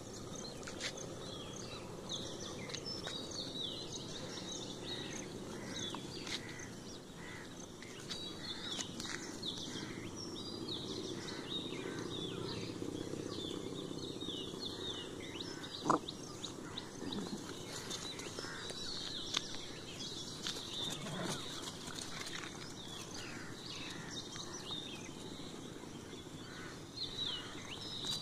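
Many small birds chirping and calling continuously, over a steady low background rumble. A single sharp click about halfway through.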